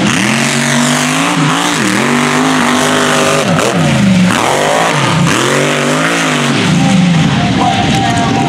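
Mega truck engine revving hard and backing off again and again as it races through a dirt short course. The pitch climbs and drops several times.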